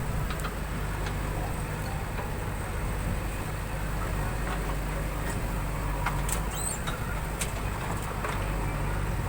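JCB 3DX backhoe loader's diesel engine running steadily, with a few light clicks and a brief high chirp about six seconds in.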